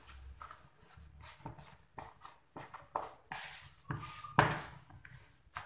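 A plastic spatula stirs and mashes a thick ground-peanut paste in a plastic bowl, in irregular scraping strokes against the bowl. The loudest stroke comes about four seconds in.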